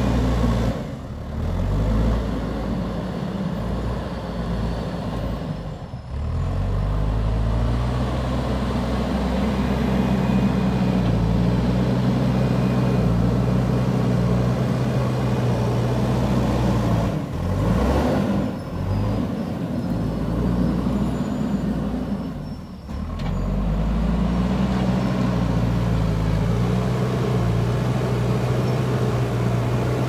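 JCB backhoe loader's diesel engine working under load as its front bucket pushes a heap of earth. The engine holds a steady note, and its revs drop and pick up again four times.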